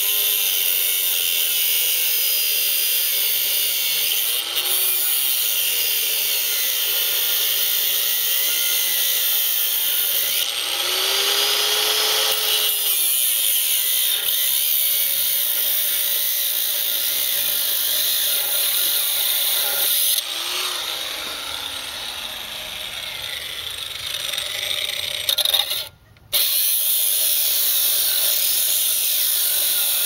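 Hand-held grinder with a cutting wheel cutting into the steel crimp of a hydraulic hose fitting: a steady, high grinding whine whose pitch sags and recovers a few times as the wheel bites. It stops briefly near the end, then starts again.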